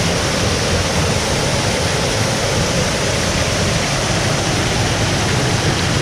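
Waterfall in a slot canyon creek: a loud, steady rush of falling water.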